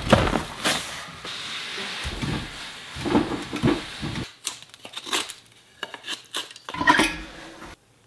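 Split firewood logs clunking and knocking together as they are dropped onto a wooden floor, followed by a run of lighter clatters and knocks.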